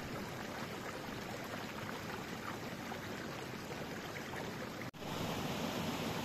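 Steady rushing outdoor noise with no clear pitch. It drops out briefly about five seconds in, then returns slightly louder.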